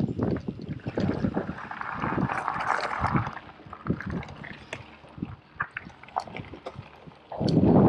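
Orbea Rallon full-suspension mountain bike descending a rocky gravel trail: tyres crunching over stones, with frequent sharp knocks and rattles from the bike, and rushing wind on the camera microphone that gets louder near the end.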